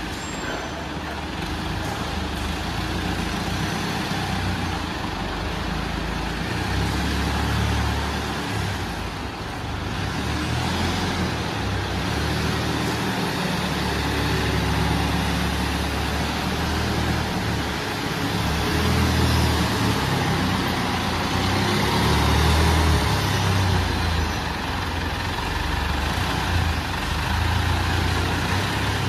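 Godrej forklift's engine running as it drives carrying a stack of plywood sheets, its low rumble rising and falling.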